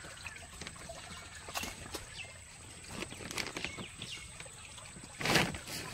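Wet fish being handled in a boat's fish hold: faint scattered knocks and rustles as they are lifted out. One louder, brief handling noise comes about five seconds in.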